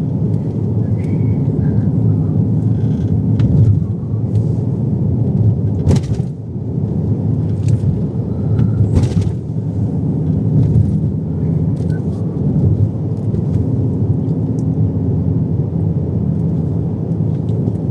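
Steady low rumble of a car being driven, with road and engine noise heard inside the cabin, and two sharp clicks about six and nine seconds in.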